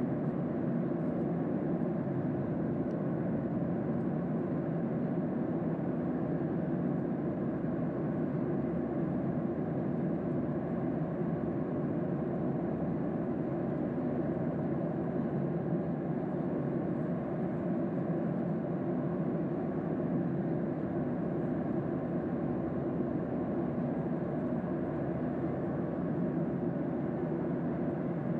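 Steady cabin noise inside a Boeing 737-800: the drone of its CFM56 engines and the rush of air along the fuselage, an even low roar with no change.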